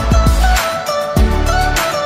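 Background music with a steady beat, about one beat every 0.6 seconds, over deep bass notes and a held melody.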